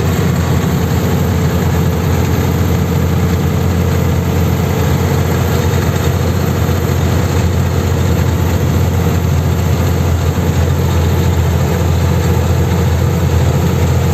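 Heavy truck's diesel engine running steadily at cruising speed, heard from inside the cab: a constant low rumble with road noise over it.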